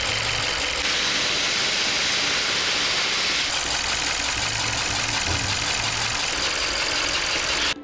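Hyundai YF Sonata four-cylinder engine idling roughly, with an uneven low pulsing: a severe misfire, which the mechanic traces to cylinder 3.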